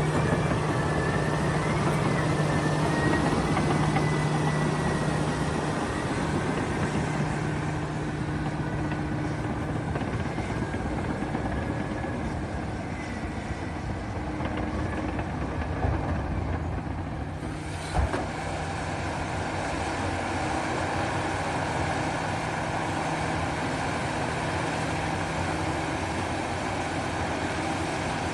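A vehicle or machine engine running steadily, with a short sharp knock about two-thirds of the way through.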